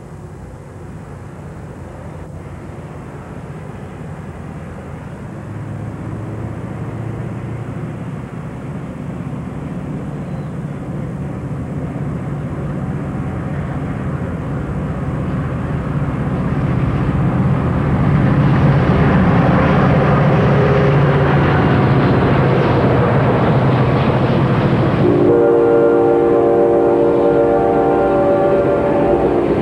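Two EMD F40PH diesel-electric passenger locomotives (V16 EMD 645 engines) approaching and passing at speed, their engine sound growing steadily louder for about twenty seconds. About four seconds before the end a train horn sounds suddenly, a held chord of several tones, as the passenger cars roll by.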